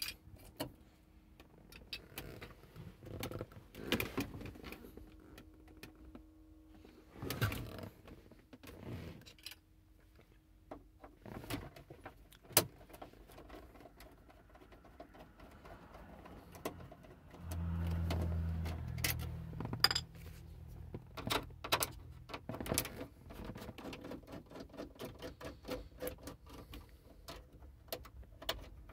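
Scattered clicks, taps and rattles of hands working on plastic dashboard trim and metal radio-release keys, with a keyring jangling. A low hum comes in for two or three seconds a little past the middle.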